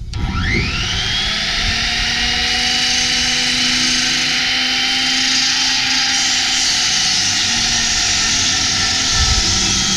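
Skilsaw Super Sasquatch 16-5/16-inch worm-drive beam saw spinning up with a rising whine in its first second, then running steadily at full speed with a loud high whine.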